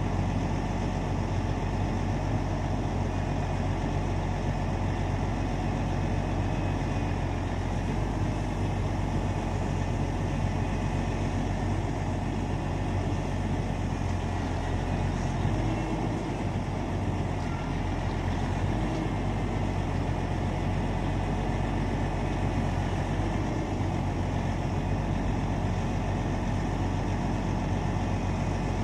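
Log truck's diesel engine running steadily while it powers the truck's self-loading knuckleboom crane, which is lifting logs off the load.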